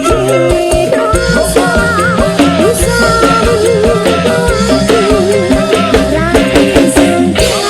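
Live band music: a wavering melody line over a steady drum and bass beat.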